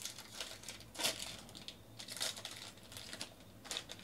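Foil wrapper of a baseball card pack crinkling as it is torn open and handled, in three short rustles.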